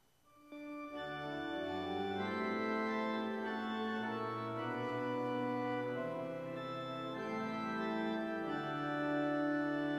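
Church organ entering about half a second in and playing slow, sustained chords, an introduction that leads into sung music.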